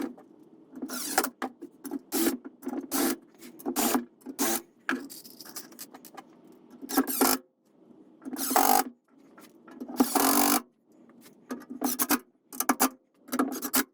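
Hand assembly of a wooden-slatted wrought iron bench: a run of short, irregular scrapes, rubs and knocks of tools, timber and metal fittings, with brief pauses between them.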